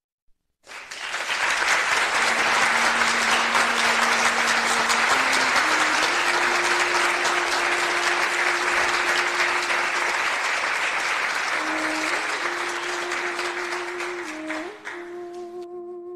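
Steady applause, dense clapping, over a slow instrumental melody of long held notes. The clapping fades out near the end while the melody carries on.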